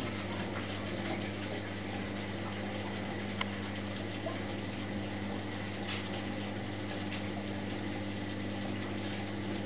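Candy GrandO Plus washing machine partway through its wool cycle: a steady electric hum from its pump or water valve, with the hiss of moving water.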